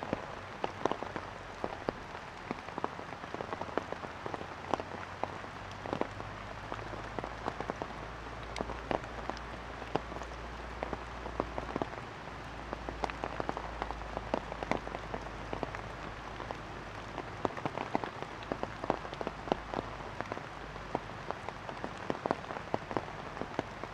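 Rainwater falling in scattered drops onto leaves and the ground: many short, sharp drops over a steady hiss.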